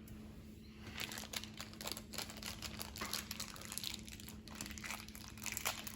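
Plastic toy packaging crinkling in the hands as it is opened, a run of irregular crackles.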